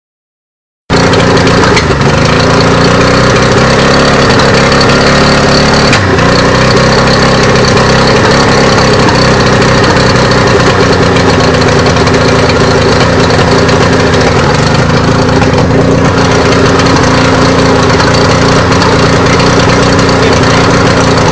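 Suzuki DT65 two-stroke outboard motor idling unsteadily: it stutters, its speed sagging and picking back up every few seconds, with a quick short chirp at some of the stumbles as it puffs smoke. A fresh water impeller and new spark plugs have not cured the rough idle.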